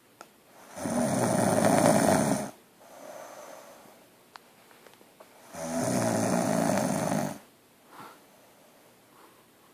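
A sleeping woman snoring loudly: two long snores about five seconds apart, each lasting nearly two seconds, with a softer breath between them.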